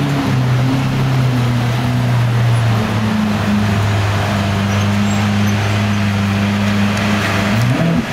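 Lamborghini Aventador's V12 engine idling low and steady as the car creeps forward, with a short rise in pitch near the end.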